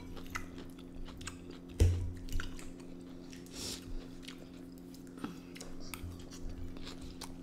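Close-miked chewing of a mouthful of salad and chicken, with small wet mouth clicks and one sharp thump about two seconds in, over a faint steady hum.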